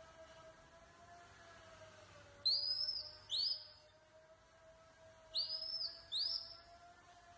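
High-pitched animal cries: two pairs of short whistle-like calls, each note rising sharply and then holding for about half a second. A faint steady humming tone runs underneath.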